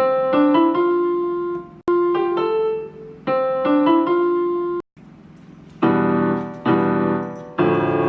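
Piano-voiced keyboard music: a short melodic phrase of single notes played twice, then three loud held chords near the end.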